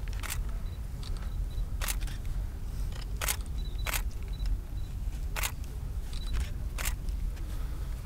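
Single-lens reflex camera shutters clicking about six times at uneven intervals, with a few short high-pitched beeps between the clicks, over a steady low rumble.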